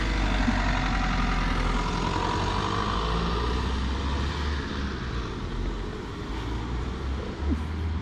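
A passing motor vehicle, its noise swelling over the first few seconds with a deep rumble and easing off after about five seconds.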